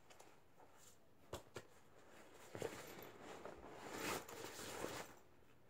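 Faint handling noise from rummaging in a school bag: a few light knocks, then a few seconds of rustling as items are moved about.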